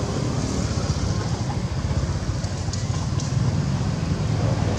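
Steady low rumble of outdoor background noise, with a few faint light ticks about halfway through.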